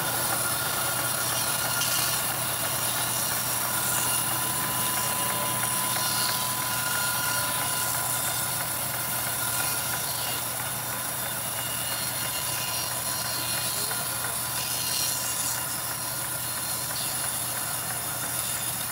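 Band sawmill running steadily as its blade saws lengthwise through a mahogany log: an even machine noise with a few steady high tones over it.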